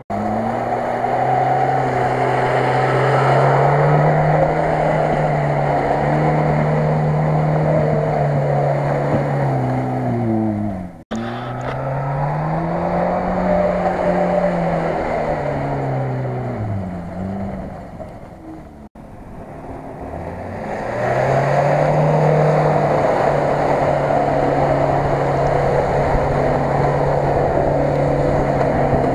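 Off-road 4x4 engines revving hard while their wheels spin through mud and water. Revs hold high, then drop and climb again several times in the middle, with two abrupt cuts between vehicles.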